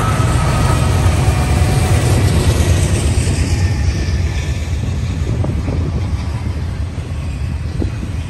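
Freight train passing close by: the last diesel locomotives go past in the first few seconds, then double-stack intermodal well cars roll by on the rails with a heavy steady rumble and occasional wheel clicks.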